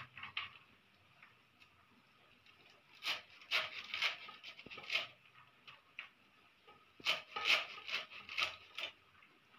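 Small hand blade cutting through red amaranth (lal bhaji) stems and leaves, the cut pieces dropping onto a steel plate: a run of crisp snips about three seconds in and another about seven seconds in, each a handful of quick cuts.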